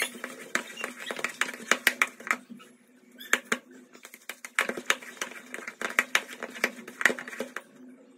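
Hands kneading soft chapati dough in a plastic bowl: quick, irregular sticky squelches and slaps, easing off briefly about three seconds in and dying away near the end.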